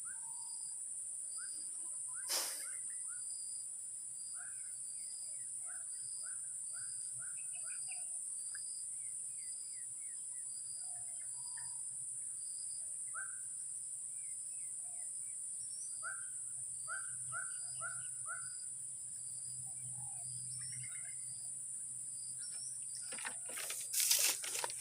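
Outdoor wildlife ambience: a steady high insect drone with a regularly pulsing chirp, and many short chirping bird calls, thickest in the second half. A single sharp click comes about two and a half seconds in, and a burst of handling clatter comes near the end.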